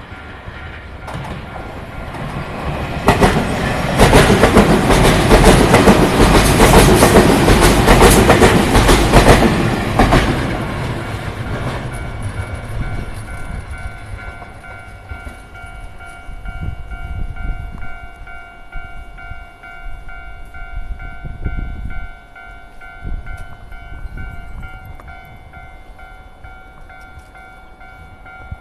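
Keio 1000-series electric train passing over a level crossing, its wheels clacking over the rail joints. It is loudest from about three to ten seconds in, then fades away. The crossing's warning bell keeps ringing in repeated tones as the train recedes.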